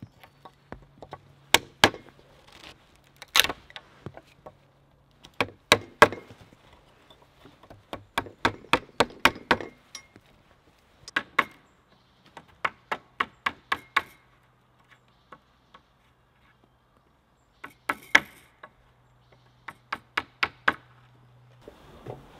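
Knife chopping and shaving into a wooden pole to carve it, heard as a run of sharp woody clicks, several strokes a second in short bursts with pauses between.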